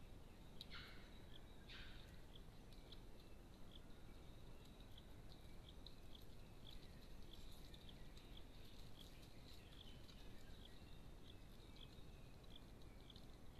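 Near silence outdoors, with faint high-pitched chirps from a small animal repeating about twice a second. There are two brief soft rustles about a second in.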